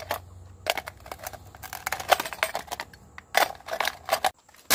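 Irregular crunching and clattering in a handful of short bursts, thickest about two seconds in and again near the end.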